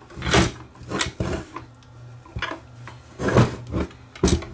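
Metal case of a Canadian General Electric portable VHF radio being turned over and handled on a wooden workbench: a handful of knocks, clunks and scrapes, the loudest a little past three seconds in.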